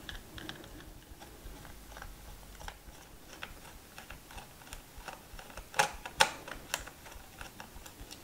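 Hand screwdriver backing small screws out of a metal MOSFET mounting: a run of faint, irregular clicks and ticks, with a few louder clicks about two-thirds of the way through.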